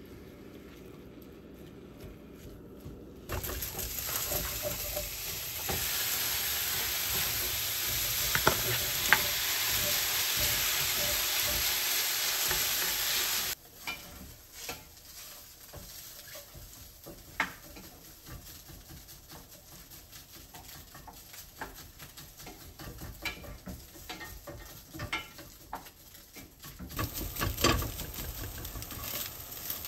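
Ground pork sizzling in a cast iron skillet as it is stirred and broken up with a wooden spoon and spatula, with scrapes and clicks against the pan. The sizzle starts a few seconds in and runs loud and steady until about halfway through. It then drops to a softer frying sound under the scraping, and grows louder again near the end.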